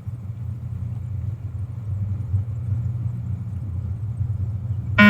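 A steady low hum. Right at the end, a loud electronic beep from the beep-test recording cuts in, the signal that marks the end of a shuttle and the change to the next stage.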